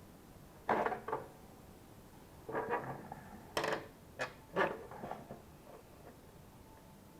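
Parts of an LG bagless vacuum cleaner knocking and scraping as it is taken apart by hand: about five short clatters over a few seconds.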